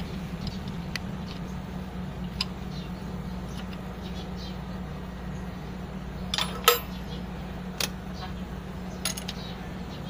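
Scattered light metallic clinks and taps of a wrench and steel fuel-line fittings being worked loose on the fuel inlet of an Isuzu 4HF1 diesel engine, the sharpest pair about six and a half seconds in, over a steady low hum.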